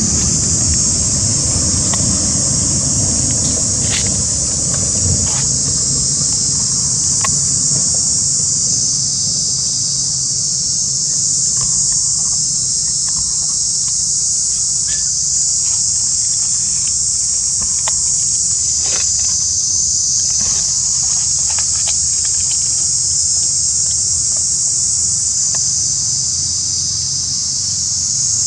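Insect chorus droning loudly and steadily at a high pitch, with a few faint scattered clicks.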